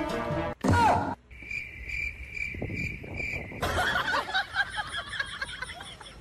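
Crickets chirping: a steady high chirp repeating about twice a second, the typical crickets-for-silence comedy effect. It is preceded by a brief loud burst with a falling glide and followed by a busier, fainter mix of sounds.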